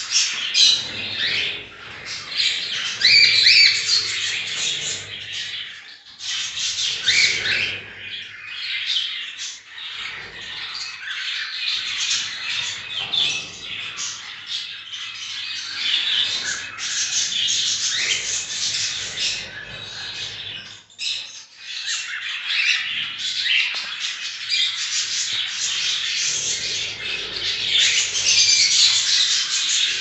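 White-face cockatiels squawking and chirping without a break, with a couple of brief lulls.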